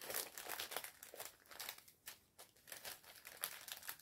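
Small plastic zip-lock bags of diamond painting beads crinkling and rustling as they are handled, in short, irregular, faint rustles.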